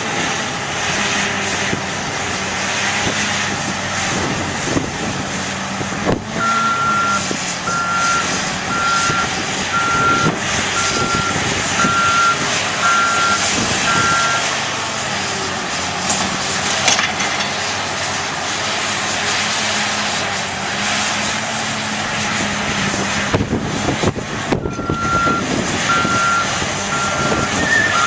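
Heavy tracked construction machines working: diesel engines running steadily under load with clanks and knocks from the machinery, and a reversing alarm beeping a little faster than once a second for about eight seconds starting about six seconds in, then again near the end.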